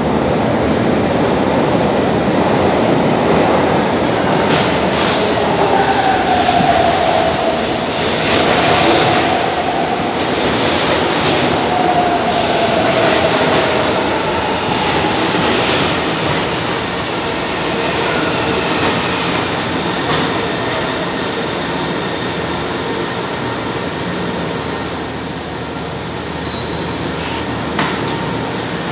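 São Paulo Metro Line 1 train (set I06) pulling into the station from the tunnel: a loud, steady rumble of wheels on rail, with wheel squeals that slide in pitch as it enters. A thinner, high squeal comes near the end as it runs along the platform.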